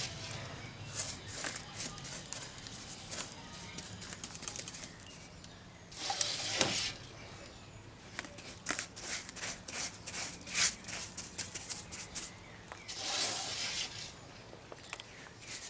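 Paintbrush dabbing and scraping wet refractory cement onto the ceramic-fibre lining of a propane forge, a run of short scratchy strokes. Two longer swishes come about six and thirteen seconds in, the second as the brush is worked in the cement pot.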